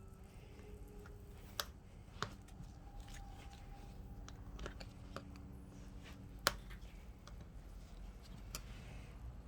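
Hand tools working at a nail stuck in a tire: a few sharp metal clicks and taps over a faint steady hum, the loudest about a second and a half in, again soon after, and once more past the middle.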